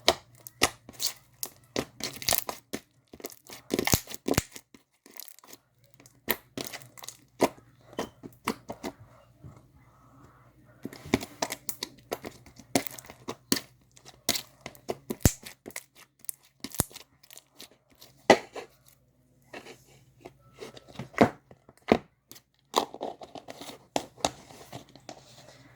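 Hands squishing and stretching warmed slime, giving many irregular sticky pops and crackles.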